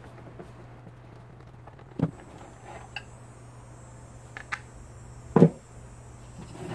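Scattered clicks and knocks as screws come out of a shop vacuum's plastic motor housing, then a loud thump about five seconds in as the plastic cover is set down on the wooden workbench. A steady low hum runs underneath.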